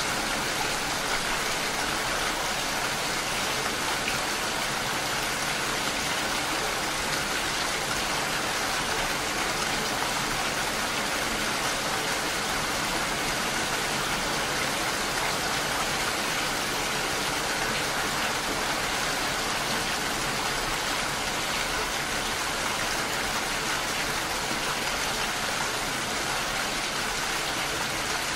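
Steady rain falling: an even, unbroken hiss that holds the same level throughout.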